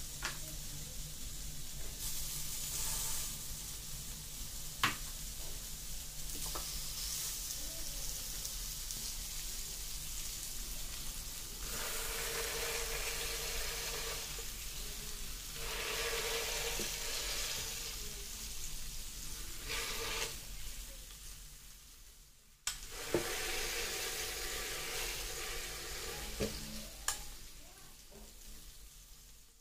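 Wagyu beef burger patties sizzling on a hot grill plate. The sizzle swells in waves as the patties are pressed flat with a spatula, and there are a few sharp clicks.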